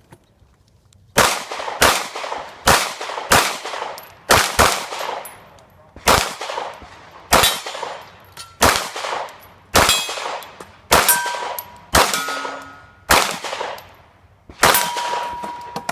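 Pistol fired in a string of about twenty shots at an uneven pace, one to two a second, each shot sharp with a ringing tail.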